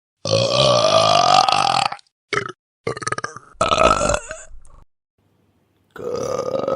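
A string of four human burps: a long one of about two seconds rising in pitch, a short one, a longer rattly one, then after a pause another near the end.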